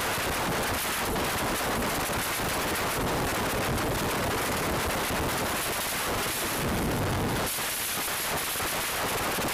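Express train coach running at speed, heard from beside the coach: a steady rush of wind on the microphone mixed with the rapid, irregular clatter of wheels over the rails. A brief louder swell comes about seven seconds in.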